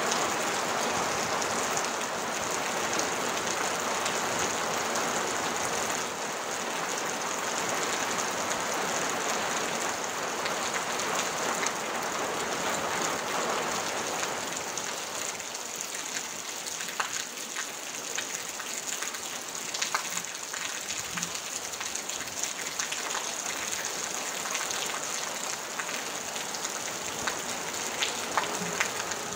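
Rain falling on a tin roof as a steady, dense hiss. It lightens about halfway through, so that single drops striking the metal are heard as sharp ticks.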